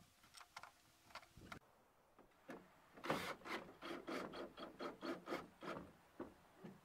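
A screw being turned in by hand to fasten a car door speaker, a quick run of short rasping strokes about four or five a second, after a few light handling clicks.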